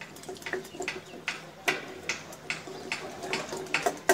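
Wire balloon whisk beating cake batter in a ceramic bowl, the tines clicking against the bowl about three times a second.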